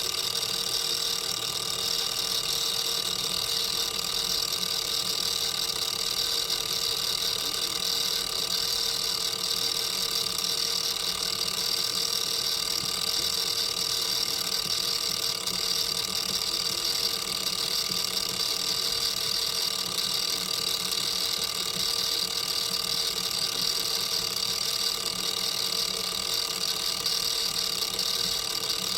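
A machine running steadily: an even hum with several fixed tones over a hiss, unchanging throughout.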